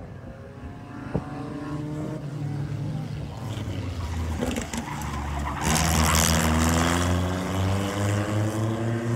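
Two Formula 1800 single-seater race cars with 1.8-litre engines running past on the circuit. The engine pitch climbs, drops and climbs again as they accelerate through the gears, and is loudest about six seconds in as they pass closest.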